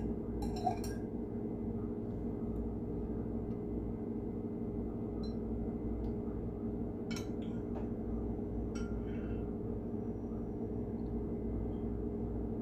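Metal spoon clinking lightly against a glass jar a few times as it scoops out set homemade yogurt, over a steady low hum.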